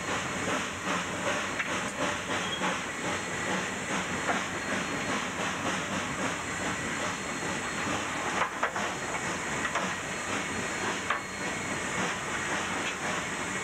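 Cab of a K-36 2-8-2 narrow-gauge steam locomotive working upgrade under a heavy tonnage train: a steady loud hiss and roar of steam, with two short sharp knocks, about eight and a half and eleven seconds in.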